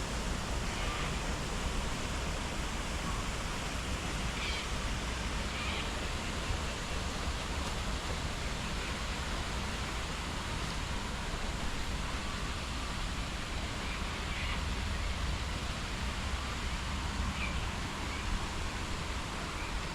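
Steady rain falling, an even hiss, with a few faint short chirps now and then.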